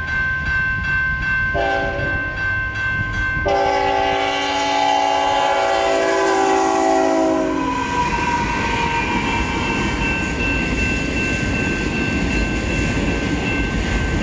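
CN veteran-scheme freight locomotive 3015 blowing its multi-chime air horn for the crossing: a blast, a short gap, then a long held blast that ends about eight seconds in. The locomotive's diesel and the freight cars' wheels then rumble past. The crossing-signal bell rings throughout.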